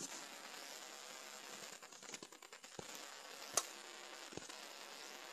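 Faint steady hiss of room tone and phone-microphone noise, with a few faint clicks; the sharpest comes about three and a half seconds in.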